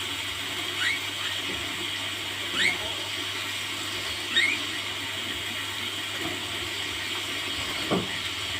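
A small caged bird gives short, squeaky rising chirps, three of them about a second and a half apart, over a steady hiss.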